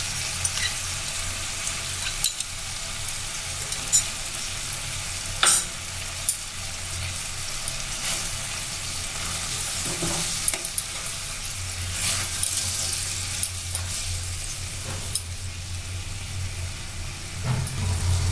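Thick, creamy paneer gravy bubbling and sizzling in a metal kadai while a metal spatula stirs through it, scraping the pan with a few sharp knocks against its side.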